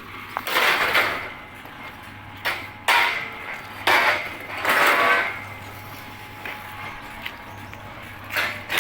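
A few short scraping and clattering noises over a steady low hum.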